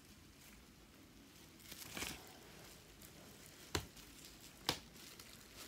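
Soft handling noise as protective covers are pulled off a resin ball-jointed doll: a short rustle about two seconds in, then two sharp clicks about a second apart.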